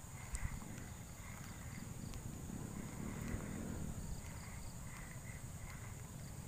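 Steady high-pitched insect drone with a faint chirp repeating about twice a second, over a low rumble.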